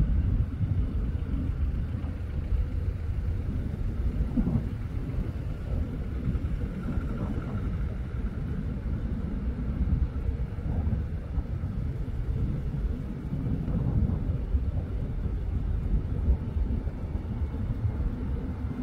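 Low, steady rumble of a distant twin-engine business jet on approach.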